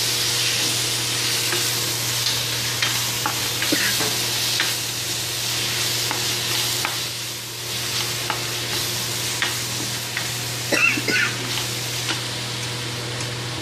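Onion, tomato and spice masala sizzling in a stainless steel pan as a spatula stirs and scrapes through it, with scattered clicks of the spatula against the pan and a brief cluster of sharper scrapes about eleven seconds in.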